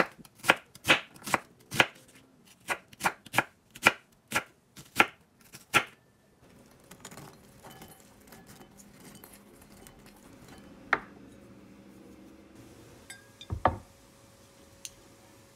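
Chef's knife dicing an onion on a bamboo cutting board: about a dozen sharp chops, roughly two a second, that stop about six seconds in. After that only a low background remains, broken by a couple of single knocks, the last a dull thud near the end.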